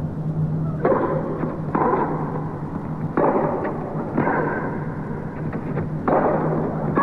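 Tennis rally: the ball is struck by rackets five times, one to two seconds apart, each hit sharp and followed by a short rush of echoing noise from the arena.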